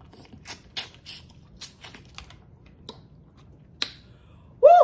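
Close-miked eating of boiled prawns: a run of sharp, scattered clicks and crackles from shells and chewing. Near the end comes a short, loud, rising vocal sound like an "mm".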